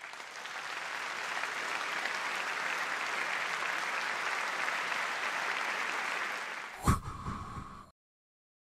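Theatre audience applauding, swelling over the first second and then holding steady. Near the end a sudden loud sweep breaks in, followed by a brief tone, and then the sound cuts off.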